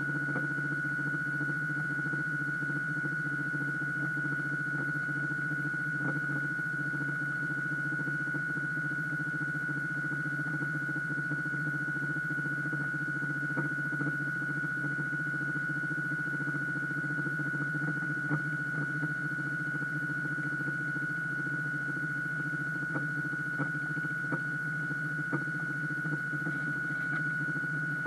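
Electric drive motor of a radio-controlled model pirate ship running steadily, heard through the hull: a constant high whine over a low hum. A few faint clicks come in the second half.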